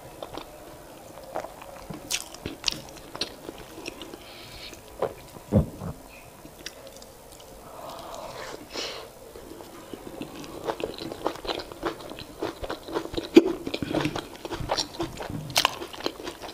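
Close-miked eating: a person biting and chewing food, with many small mouth clicks, more frequent and louder in the second half.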